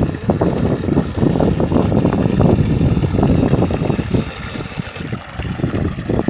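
Water gushing from a pipe outlet into a shallow irrigation ditch, mixed with heavy wind buffeting on the microphone.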